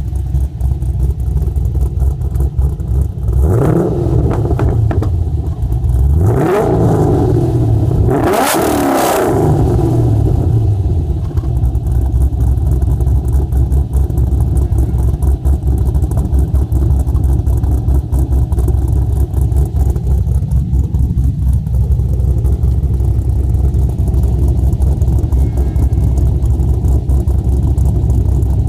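Holden VE Commodore's 6.0-litre L98 V8 with an aftermarket Oztrack camshaft, heard at the dual exhaust tips, idling with a lumpy, uneven beat. It is revved quickly three times in the first ten seconds, the third rev the highest. About twenty seconds in it gets one lighter rev.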